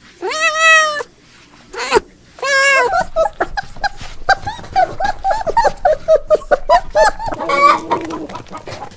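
Animal calls: three drawn-out, pitched cries in the first three seconds, then chickens clucking in a quick run of short calls.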